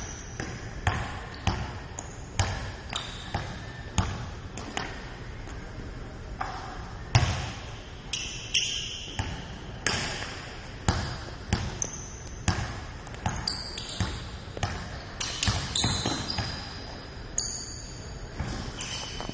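Basketball being dribbled on an indoor wooden court, a steady run of bounces about one every half second to second, each echoing in the gym hall. Short high squeaks come in among the bounces in the second half.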